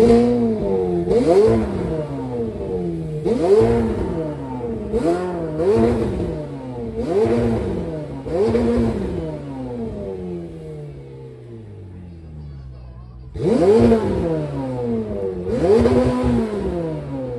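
A vehicle engine revved in repeated quick throttle blips, about one a second. After each blip the pitch jumps and then sinks back toward idle. A longer fall back near the middle is followed by two more blips near the end.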